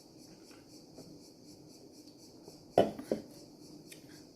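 Two quick clinks of cutlery against a dish, a little under three seconds in, the second softer, over a faint steady background.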